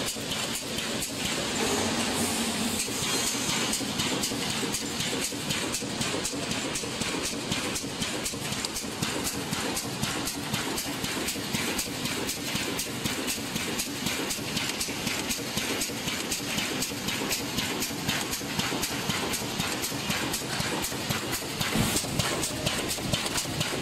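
Automatic wire mesh welding machine for poultry cages running at speed: a steady, rapid rhythmic clatter of welding and feeding strokes over a constant hiss.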